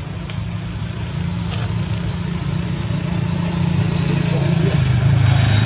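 A motor vehicle engine running steadily with a low hum, growing louder toward the end.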